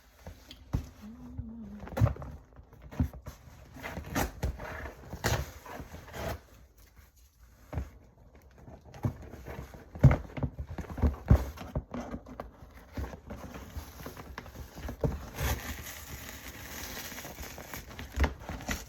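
Irregular knocks, taps and clatter of things being handled, with a stretch of rustling from about three quarters of the way in.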